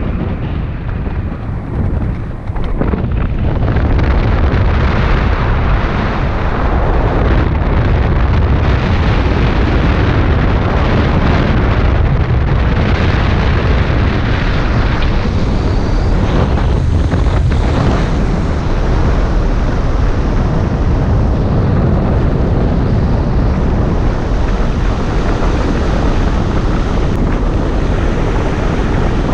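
Loud rush of air buffeting the microphone of a camera on an Aeros Combat 14L hang glider in a steep spinning spiral. The wind noise swells about four seconds in as the dive picks up speed and then holds steady.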